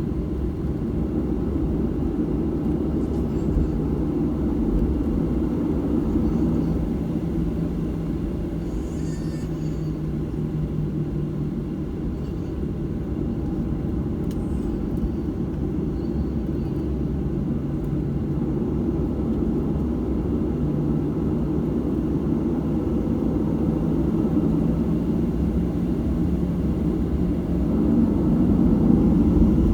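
Boeing 737-700's CFM56-7B jet engines and the airframe heard from inside the cabin during the takeoff run: a steady low rumble that grows louder near the end.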